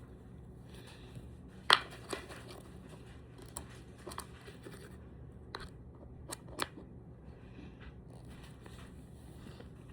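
Hands handling squishy toys and their plastic packaging: soft rustling with scattered sharp clicks and taps, the loudest about two seconds in.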